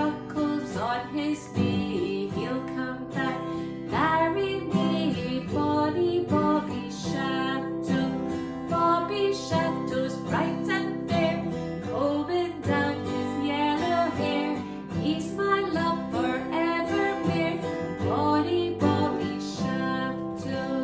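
Music: a woman singing a nursery rhyme to a strummed acoustic guitar.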